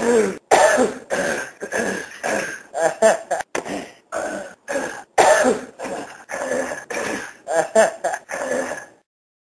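A man loudly and repeatedly clearing his throat, a rapid run of harsh hacking grunts about two a second that stops abruptly near the end.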